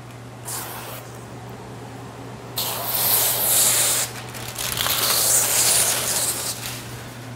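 Slip solution hissing from a sprayer onto window tint film on a clear board, in two long stretches, the first about two and a half seconds in and the second about a second later. A steady low hum runs underneath.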